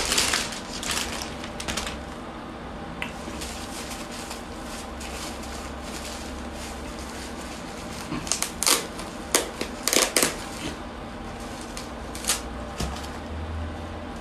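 Plastic gift packaging crinkling and rustling as it is handled and opened by hand, in bursts over the first two seconds and again about eight to eleven seconds in.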